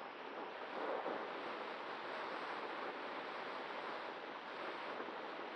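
Air rushing over a Cularis model glider's onboard camera microphone in flight: a steady rushing hiss, slightly louder about a second in.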